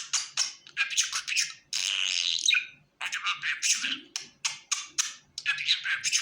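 Budgerigar chirping and warbling in quick, high-pitched bursts of chatter, with a few longer stretches of warble.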